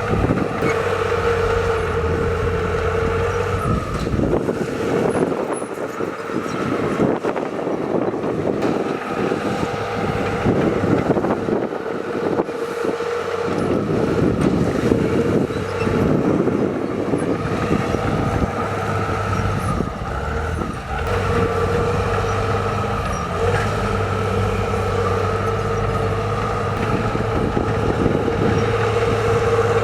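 Heavy diesel construction machinery running. A steady engine note is heard at the start and end, and from about four seconds in to about seventeen seconds a rougher, uneven rumble replaces the steady low tone.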